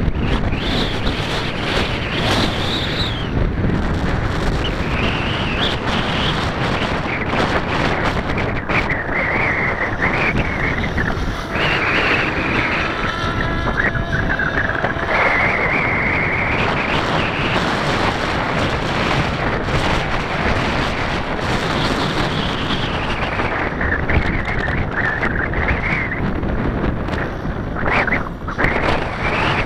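Wind rushing over the microphone, with the whine of a model aircraft's motor and propeller rising and falling in pitch several times as it throttles and passes.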